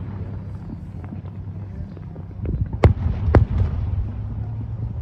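A steady low hum with two sharp clicks about half a second apart a little past halfway, and a few fainter clicks around them.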